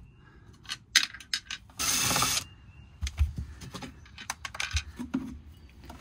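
Scattered plastic clicks and rattles from dismantling the centre console trim and handling its wiring connectors. About two seconds in, a loud, even burst of hiss lasts about half a second.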